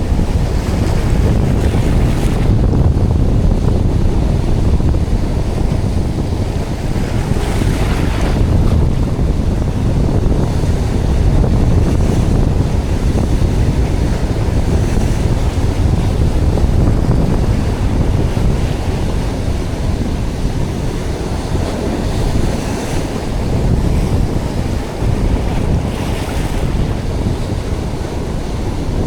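Strong wind buffeting the microphone with a heavy, steady rumble, over surf washing onto the beach. A few times a wave breaks with a brief hiss.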